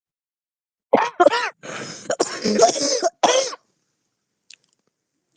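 A person's smoker's cough: two sharp coughs about a second in, then a second and a half of harsh, raspy throat-clearing, and one more cough before it stops.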